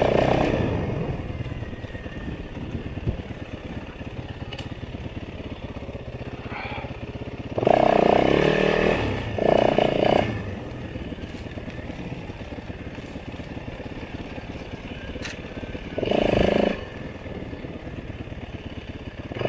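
Off-road motorcycle engine running at low throttle on a trail, opened up in louder bursts twice around the middle and once more toward the end.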